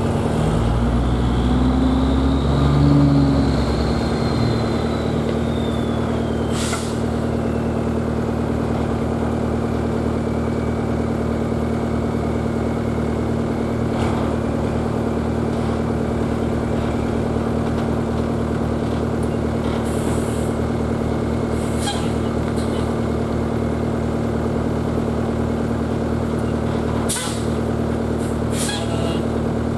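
Peterbilt 359 dump truck's diesel engine running, climbing in pitch over the first few seconds and then holding steady. A handful of short hissing bursts of air cut in through it.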